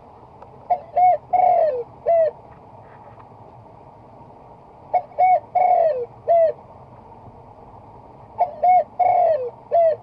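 Spotted dove cooing: a phrase of about four coos, one of them drawn out and falling, repeated three times about every four seconds.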